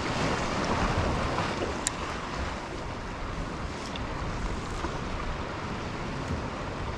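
Sea water lapping against a fishing kayak's hull, with wind on the microphone.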